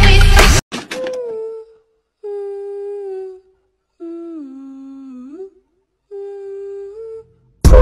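A voice humming a slow melody in four long held notes, separated by short pauses, the third sliding down in pitch. Loud music cuts off just before the humming and starts again at the very end.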